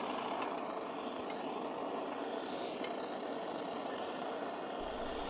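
Handheld propane torch burning with a steady hiss, its flame played over a small air-cooled diesel engine's head and intake to warm it for a cold start.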